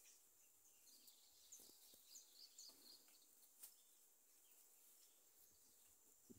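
Near silence: faint outdoor ambience with a few soft, high bird chirps in the first half.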